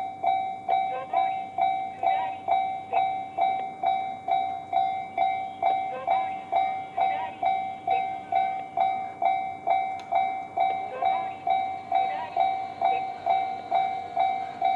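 Japanese railway level-crossing alarm sounding the JR standard tone: a rhythm of a little over two ringing strokes a second, each fading before the next. It is the warning that a train is approaching.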